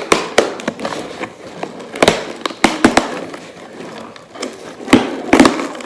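Packaging of a new AirPods case being opened and handled: a run of sharp, irregular crinkles, snaps and clicks, with the loudest bunches about two seconds in and near the end.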